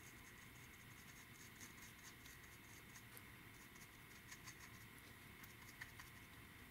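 Faint, irregular scratching and ticking of a small paintbrush dabbing paint onto the plastic cockpit floor of a scale model kit, over a faint steady high background tone.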